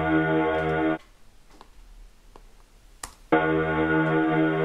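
Ambient drone from a PaulxStretch-stretched, pitched-down music track: a dense, sustained chordal wash that cuts off about a second in, leaves a couple of seconds of near-quiet with a few faint clicks, then comes back suddenly.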